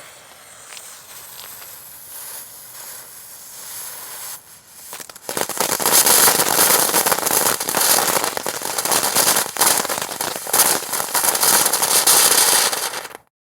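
Crackling firework fountain: a softer spraying hiss, then about five seconds in it breaks into loud, dense crackling that stops abruptly near the end.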